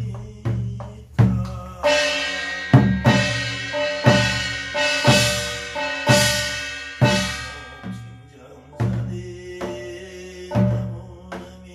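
Korean barrel drum (buk) struck with a stick in a steady beat, roughly one stroke a second, some strokes doubled, with held ringing tones carrying on between the strokes.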